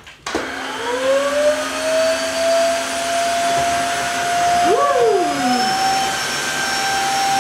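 Tineco Floor One S3 wet-dry vacuum mop starting up about a quarter second in, its motor whine rising in pitch over the first two seconds, then running steadily with a rush of suction as it picks up wet spills from a tiled floor. The whine steps up slightly about five seconds in.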